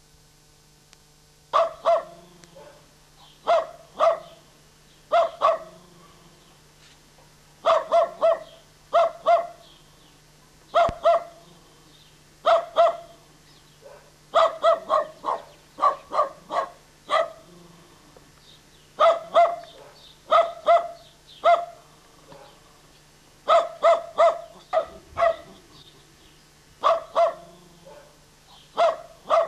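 A dog barking repeatedly: short sharp barks in bunches of two or three, with pauses of a second or two between bunches, over a faint steady hum.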